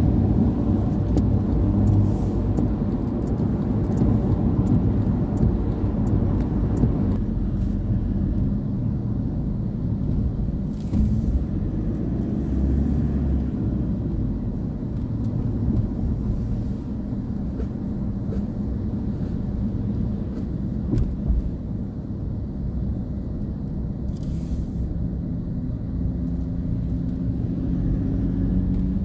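Road noise of a moving car heard from inside the cabin: a steady low rumble with tyre hiss on a wet road. The higher hiss drops away about seven seconds in.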